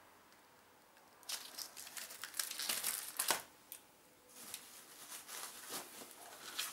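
Plastic shrink-wrap crinkling in a dense, crackly rustle as a wrapped pack of firework tubes is handled, starting about a second in. After a short pause near the middle, softer rustling follows as packaging is rummaged in a cardboard box.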